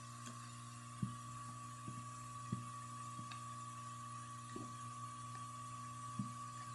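Soft, scattered taps and knocks of a plastic pry tool and fingers against an iPad 2's glass digitizer and aluminium case as the glass is slowly lifted away, about six in all, the loudest about a second in. A steady electrical hum runs underneath.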